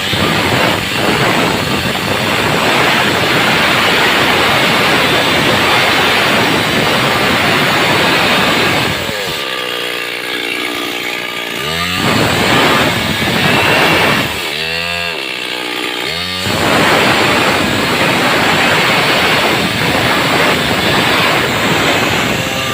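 Stihl chainsaw cutting through wood at full throttle. Twice, about a third and two thirds of the way in, it eases off between cuts, and the engine note falls and then climbs again before it bites back into the wood.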